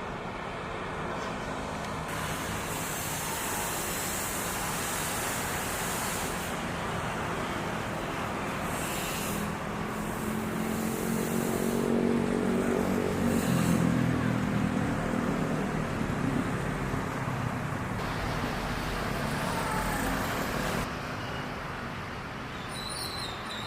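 Passing train: a steady rumble and hiss of wheels on track, with a diesel locomotive's engine hum that swells to its loudest about halfway through and then fades.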